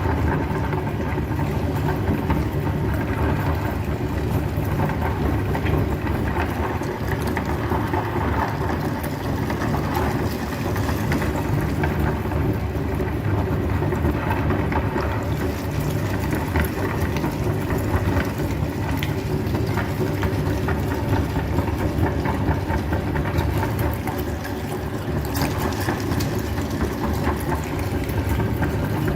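Electric meat grinder running steadily, its motor humming.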